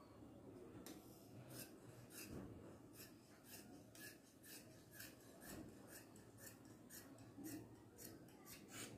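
Large tailor's shears snipping through folded dress fabric: faint, crisp cuts at about two a second, starting about a second in.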